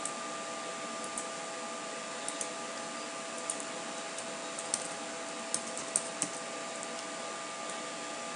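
Scattered computer mouse clicks and keystrokes, about a dozen short sharp clicks at irregular spacing, several coming close together about two-thirds of the way in, over a steady hiss and faint hum.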